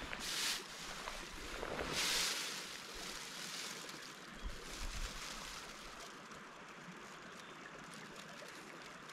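A small mountain creek running steadily. Two brief swishes come in the first few seconds, and a few soft low bumps around the middle.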